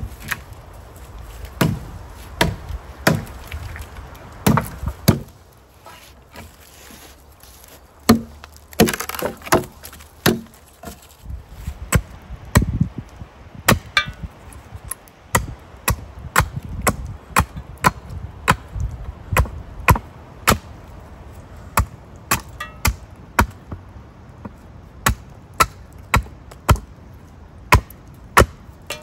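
Hatchet chopping into a wooden pole held upright on a chopping block, a long series of sharp separate strikes, about one or two a second, as chips are cut from it. A few wooden knocks come in the first seconds.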